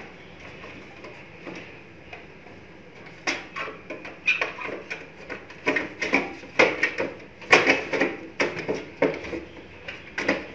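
Plastic side cover of an HP LaserJet M1005 printer being pushed and snapped onto its chassis: a series of irregular hard plastic knocks and clicks, starting about three seconds in.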